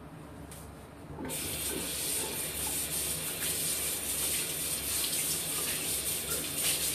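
Bathroom washbasin tap turned on about a second in, then water running steadily into the sink while hands work under the stream.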